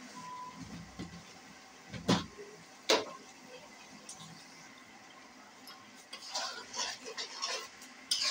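Two sharp knocks a little under a second apart, then a metal spoon scraping and clicking against an aluminium karahi as thick chilli pickle is stirred, starting about six seconds in.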